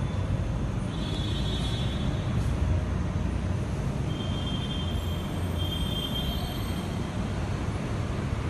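Steady low rumble of metro station background noise, with a faint high whine heard twice, briefly.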